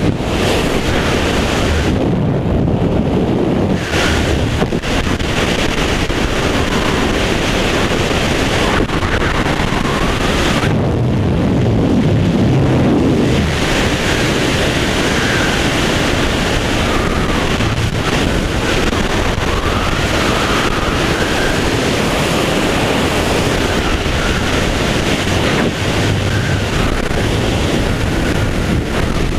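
Freefall wind rushing over a head-mounted camera's microphone: loud, steady, rough rush of air, its hiss dulling briefly a couple of times as the body position shifts.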